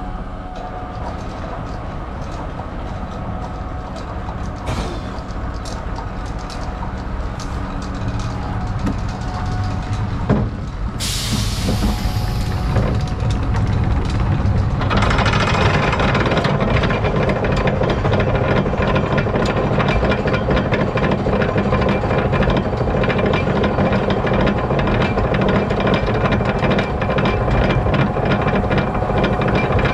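Steel roller coaster train rolling with a light rattle, a short hiss of its brakes releasing about eleven seconds in, then the lift-hill chain engaging about fifteen seconds in and clanking loudly and steadily with rapid clicking as the train climbs.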